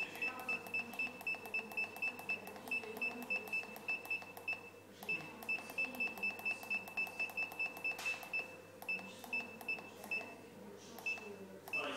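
Spa control panel beeping in quick, even succession, about three high beeps a second, as its hour button steps the clock setting. The beeps break off briefly about five seconds in, then resume, and come only a few times near the end.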